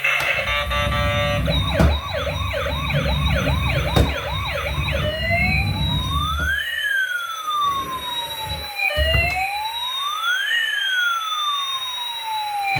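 Electronic siren from a toy emergency vehicle: a fast yelping warble for a few seconds, then a slow wail that rises and falls. A low rumble runs under the first few seconds.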